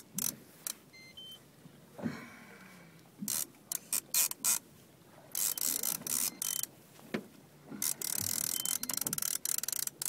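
Fishing reel being cranked in uneven spells, its gears whirring and clicking as a fish on the line is wound up from deep water.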